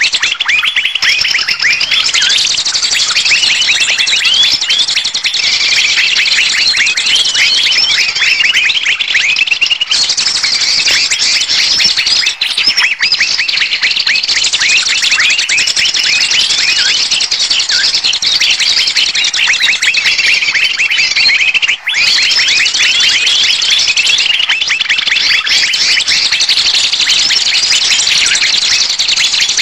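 A bird-luring (pikat) recording: a dense chorus of many small birds chirping rapidly and without pause, the agitated 'ribut' calling used to draw wild birds in. It dips out briefly twice.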